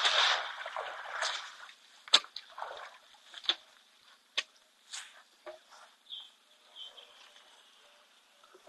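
An African elephant moving right at the camera: close scuffing and rustling for about the first second and a half, then a scattered series of sharp clicks and knocks that grow fainter and sparser as it walks away.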